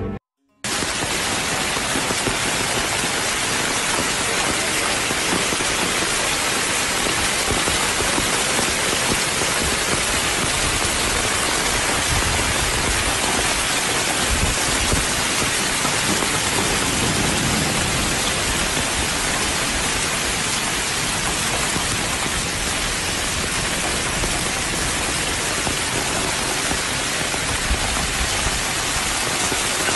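Heavy rain pouring down steadily, a dense, even hiss that starts just under a second in.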